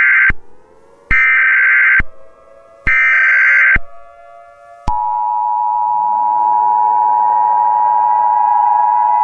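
Emergency Alert System SAME header: bursts of screeching digital data tones about a second long, repeated with short gaps between them. About five seconds in, the steady two-tone EAS attention signal starts and holds. Faint tones glide upward underneath.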